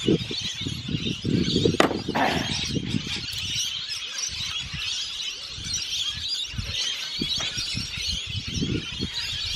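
A flock of parrots chirping and screeching continuously, with a louder squawk about two seconds in. Wind buffets the microphone with a low rumble.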